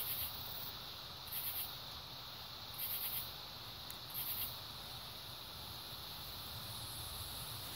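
Night insects: a steady high cricket trill, with a short rasping call repeating about every second and a half for the first half.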